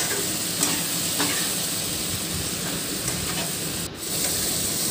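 Spiced potato and amaranth-stem masala sizzling in oil in a non-stick frying pan while a spatula stirs it, with a few light scrapes and clicks of the spatula against the pan. The sound cuts out for a moment about four seconds in.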